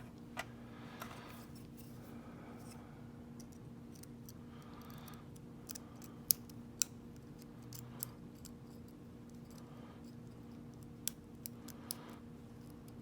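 Lock pick and tension wrench working the pin stack of a Lockwood 30mm laminated brass padlock: irregular small metallic clicks and faint scraping, the loudest clicks a little past the middle.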